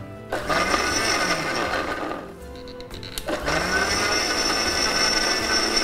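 Electric mixer grinder blending chunks of white pumpkin and coconut with water, run first in short reverse pulses to break up the large pieces and then forward. The motor starts just after the beginning, rising in pitch as it spins up, slackens about two seconds in, starts again about a second later and then runs steadily.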